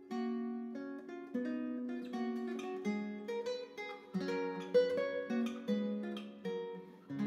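Background music: a plucked string instrument, guitar-like, picking out a light melody of quick separate notes that ring and fade.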